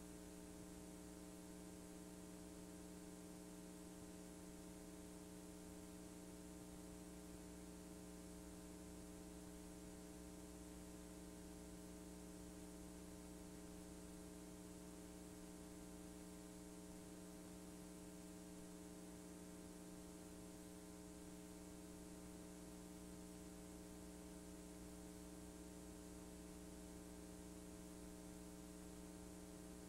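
Near silence with a faint, steady electrical hum and hiss, the mains hum and tape noise of a VHS transfer over a blank stretch of tape.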